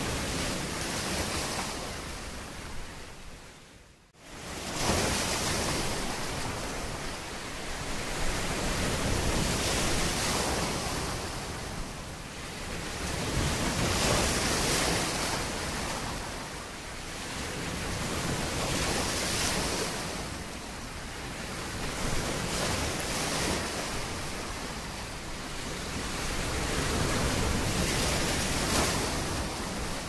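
Sea waves washing in, the surf noise swelling and ebbing every few seconds. About four seconds in the sound fades almost to nothing and comes back abruptly.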